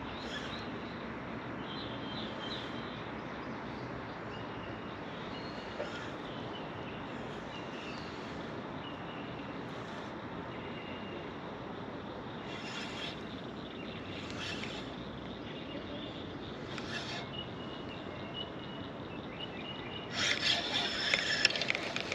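Outdoor ambience: a steady background hiss with scattered short, high chirps, and a louder rustling burst lasting about two seconds near the end.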